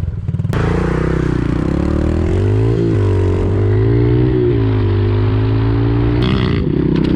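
Pit bike engine running close by, revving up and down with the throttle.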